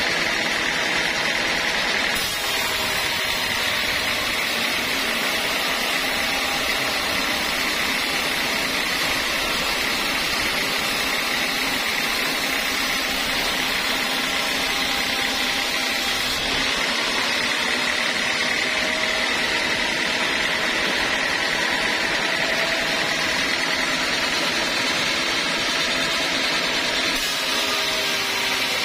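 Sawmill machinery running steadily, giving a constant mechanical noise.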